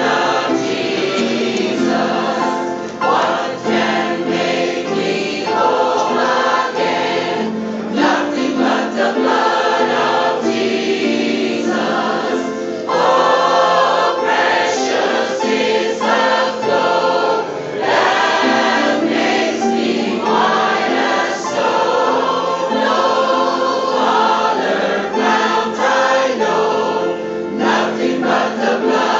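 Large mixed choir singing a gospel song with accompaniment.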